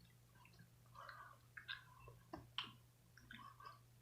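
Faint chewing of candy corn: scattered soft mouth clicks and smacks, over a steady low hum.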